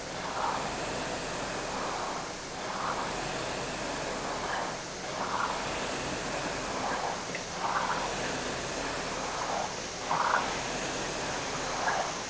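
Concept2 air rower's flywheel fan whooshing steadily under hard rowing. The whoosh swells once per stroke, about every two and a half seconds.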